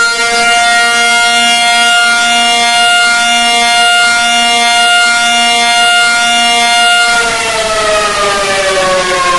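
Civil defense warning siren holding a steady pitch, then winding down and falling in pitch from about seven seconds in.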